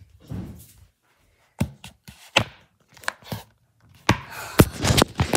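Handling noise from a handheld phone being carried about: three separate knocks about a second apart, then a rush of rustling and clattering against the microphone near the end.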